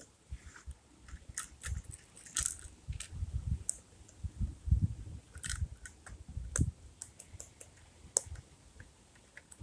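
Scale-model rear-loader garbage truck handled by hand on a rubber mat: scattered sharp clicks and taps of its small parts, with low dull bumps as it is moved and set down.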